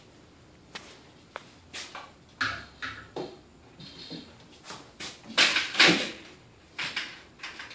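A road bicycle being lifted and hung by its wheel on a wall hook: scattered knocks and rattles, with the loudest clatter about five to six seconds in.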